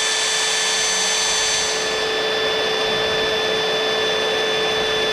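Electric drill running at a steady low speed, boring a small pilot hole into forged steel held in a vise: an even motor whine over the grinding of the bit in the metal.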